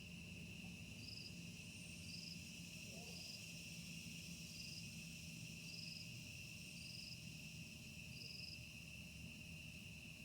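Insects, crickets by their sound, trilling steadily and faintly. A second, higher chirp repeats about once a second over the trill.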